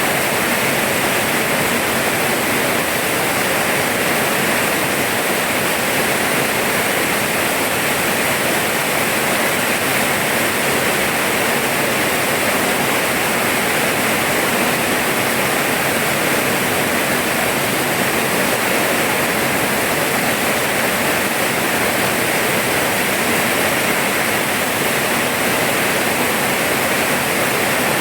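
Steady, heavy rainfall: a continuous, even hiss of rain with no distinct drops or breaks.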